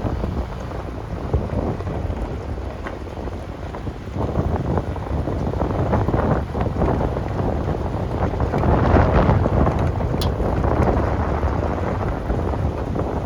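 Wind buffeting the microphone: an uneven, gusting low rumble that grows somewhat louder in the second half.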